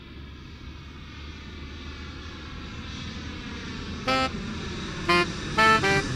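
Jet airliner's engines at takeoff power: a steady roar with a faint whine slowly falling in pitch, growing louder. From about four seconds in come four short horn-like toots, the loudest sounds here.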